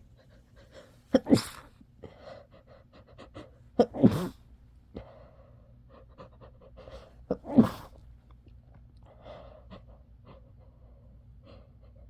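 A person sneezing three times a few seconds apart, each sneeze a short catch followed at once by the main burst, with quieter breathing in between.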